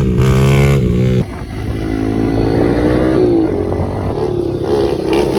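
Pit bike engine revving hard, dropping off sharply about a second in, then building again in rising sweeps as it is ridden.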